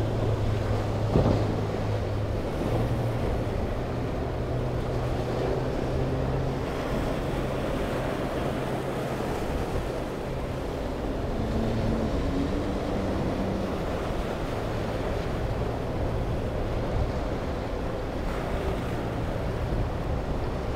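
Center-console boat's Suzuki outboard motor running through rough water, a steady low drone whose pitch steps up and down a few times, over breaking surf and wind noise. A sharp slap about a second in.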